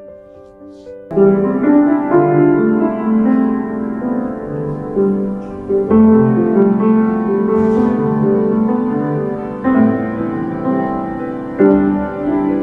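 Grand piano being played: a gentle, melodious piece of sustained chords and melody, starting about a second in.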